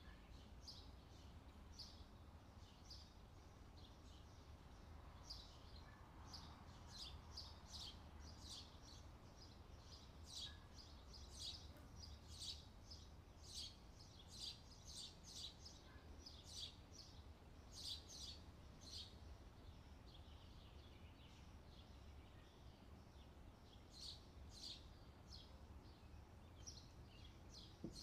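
Faint small-bird chirping: many short, high chirps in irregular clusters over a low steady hum.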